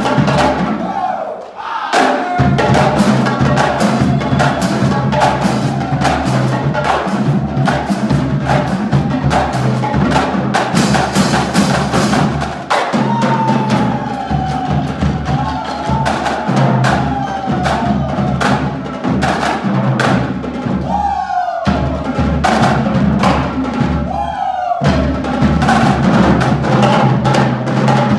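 Marching drumline playing a fast cadence: rapid snare drum strokes and rolls over pitched marching bass drums, with two brief breaks near the end.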